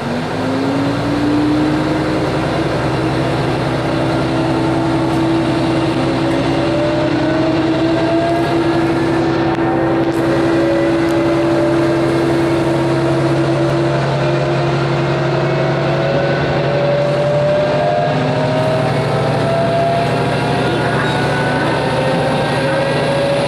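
Diesel railcar running under power and gathering speed, heard from inside the passenger cabin. A steady engine drone underlies a whine that climbs slowly in pitch several times over.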